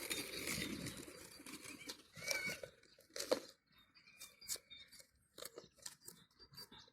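Butter slime being handled and pressed into a small container, with scattered soft sticky clicks and crackles.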